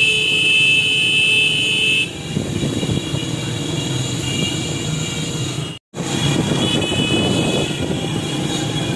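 Small motorcycles riding in a group, their engines running. A horn sounds steadily for the first two seconds, and horns honk again more faintly in the second half; the sound cuts out for an instant near the middle.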